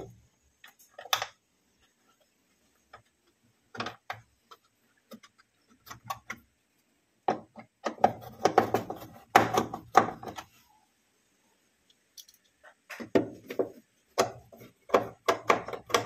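Screws being driven back in by hand with a screwdriver at the plastic housing of a top-load washing machine: scattered clicks, taps and scrapes of metal on plastic, in short clusters with quiet pauses between.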